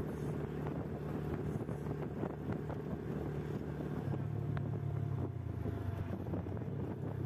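Motorcycle engine running steadily while riding, with wind noise on the microphone; the engine note drops to a lower, stronger hum about four seconds in.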